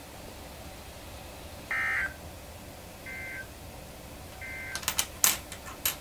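Weather radio sounding the three short warbling data bursts of an Emergency Alert System end-of-message code, about a second and a half apart, the first the loudest; this marks the end of the warning broadcast. A quick cluster of sharp clicks follows near the end.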